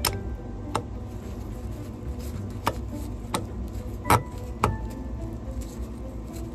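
Sharp metallic clicks and clinks of a hand tool against a hose clamp and heat exchanger fitting, about six in all, the loudest a double clink about four seconds in.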